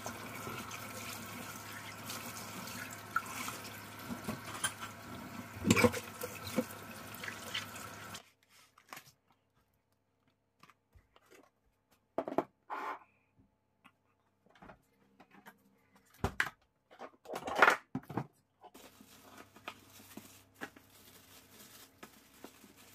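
Water running from a tap into a sink, a steady rush that cuts off abruptly about eight seconds in. After that, a few scattered knocks and clicks.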